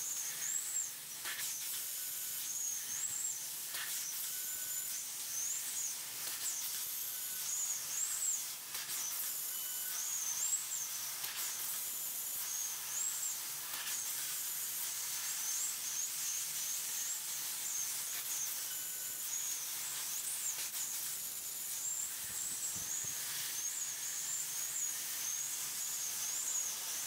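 12 kW fiber laser cutter cutting 16 mm stainless steel plate: a steady hiss of assist gas jetting from the cutting nozzle, with a high whistle that wavers up and down as the head moves. A few short ticks sound along the way.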